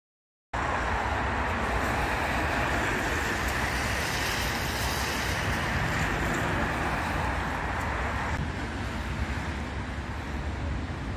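Steady road traffic noise with some wind on the microphone, starting abruptly after a moment of silence and dropping a little in level about eight seconds in.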